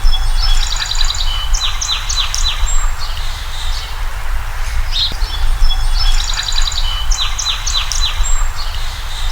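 Songbirds singing in high chirps and quick trills over a steady low rumble. The same phrase comes back about every five seconds, like a looped nature recording.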